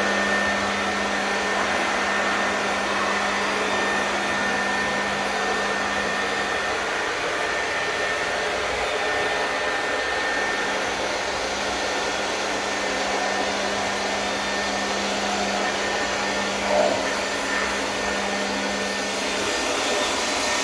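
A steady electric motor drone with an airy hiss and a low hum, holding an even level throughout. A brief louder sound breaks in once, about three-quarters of the way through.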